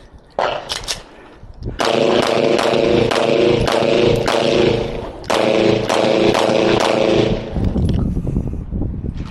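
A music track with a steady driving beat, coming in about two seconds in and briefly dropping out around the middle; a few sharp cracks come just before it.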